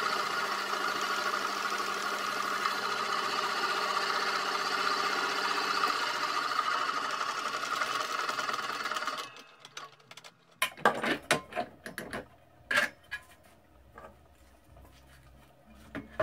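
Homemade cymbal lathe running with a steady whir and hiss while the spinning crash cymbal is polished by hand; the sound cuts off sharply about nine seconds in. After that come scattered sharp metallic clinks and knocks.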